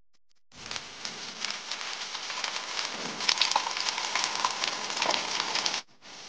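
Zhagao, Beijing fried glutinous-rice cakes, deep-frying in a vat of hot oil: a dense, steady sizzle full of sharp crackles and pops. It cuts off suddenly near the end.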